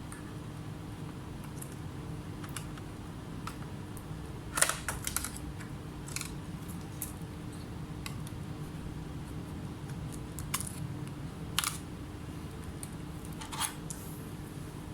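Scattered small clicks and taps from tools and parts handled at a laptop repair bench, the loudest a quick run of several clicks about four and a half seconds in, over a steady low electrical hum.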